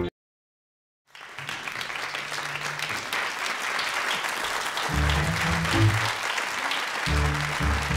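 Theatre audience applauding, beginning about a second in after a sudden cut to silence, with low bass notes playing in short phrases underneath.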